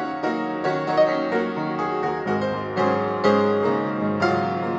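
Piano music, notes played in a steady flowing run.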